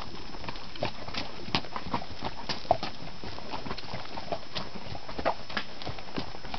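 Mules' hooves clopping on a rocky dirt trail at a walk, an uneven run of knocks about two to three a second, the sharpest one near the middle.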